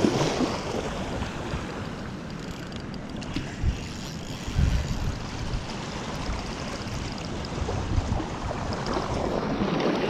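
Wind blowing across the microphone, with a few low buffeting thumps, over a steady wash of water and small waves.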